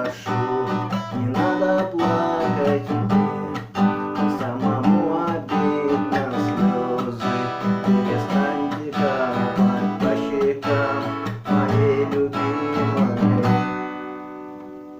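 Instrumental ending of a song: strummed acoustic guitar playing a steady rhythm, closing on a final chord that rings out and fades near the end.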